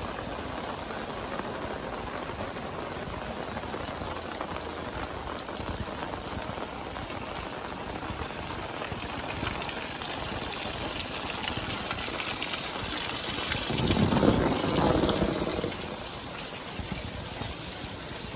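Heavy tropical rain pouring down steadily. It swells louder in the second half and peaks in a brief louder rush about fourteen seconds in before settling back.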